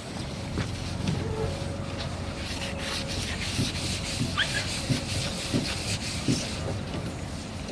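Abrasive sanding of a metal roofing profile sheet: a scratchy rubbing hiss, with a run of repeated strokes in the middle.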